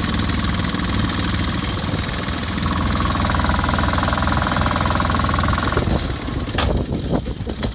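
Engine of a Creemers portable air compressor running steadily, with a steady whine joining for about three seconds in the middle; the engine stops about six seconds in, and a few sharp clicks and knocks follow.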